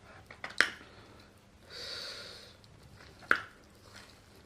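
Someone eating saucy chicken close to the microphone: two sharp wet mouth clicks about two and a half seconds apart, with a soft breath through the nose between them.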